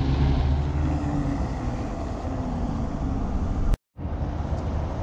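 Low, steady drone of a running vehicle engine with road noise, broken by a sudden fraction-of-a-second dropout to silence about four seconds in.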